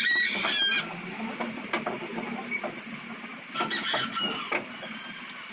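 Chickens clucking and squawking in two short bouts, one at the start and another about three and a half seconds in, with a few light knocks between them.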